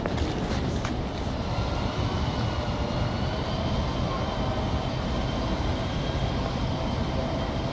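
A vehicle running: a steady low rumble with a faint whine above it.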